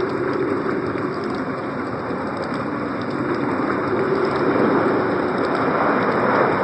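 Synthesized winter storm effect from a Casio CT-X5000 keyboard: a steady rushing noise that swells and eases slowly, without distinct tones.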